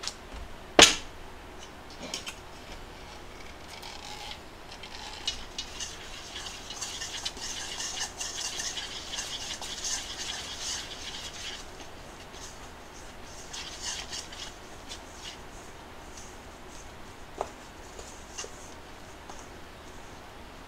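A sharp metallic clank about a second in as a stainless steel mixing bowl is set down. Hot water is then poured from a measuring cup into flour for gyoza dough, a steady hiss lasting several seconds, while chopsticks scrape and stir the flour against the steel bowl.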